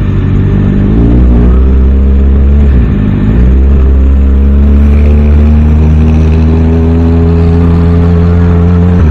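Kawasaki ZX-6R inline-four engine running under way, its pitch rising as it pulls. The pitch dips briefly about three seconds in, then climbs slowly and steadily again.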